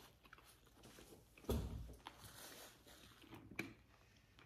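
Mostly quiet room with one soft, low thump about a second and a half in and a couple of faint clicks near the end.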